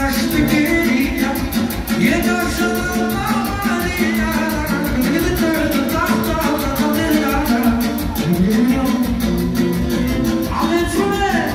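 Live manele music, a Romani dance tune (joc țigănesc), with a man singing through an amplified handheld microphone over the band's steady beat.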